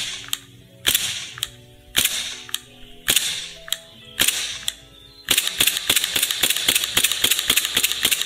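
Gas blowback airsoft pistol (Army Armament R17) firing single shots about once a second, each a sharp crack with a short fading hiss of gas. About five seconds in, it breaks into a fast run of clicks over a steady hiss.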